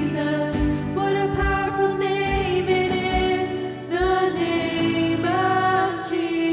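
Worship band music with long held sung notes, over a kick drum beat about once a second that drops out about two thirds of the way through.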